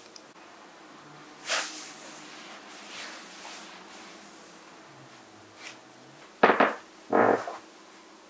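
Hands rubbing across leather sofa upholstery, giving a few soft swishes, then two louder dull thumps about a second apart near the end.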